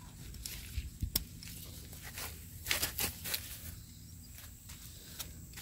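Faint rustling with scattered light clicks and taps, and a few brushing sounds about two and a half to three and a half seconds in: footsteps and leaves brushing while moving through pepper plants along a wire trellis.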